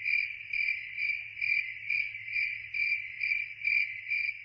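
Cricket chirping in a steady, even pulsing trill, about two and a half chirps a second.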